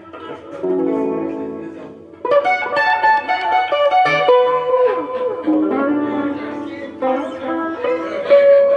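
Guitar music: plucked chords and single notes ring out, with a fresh group of notes struck every second or two.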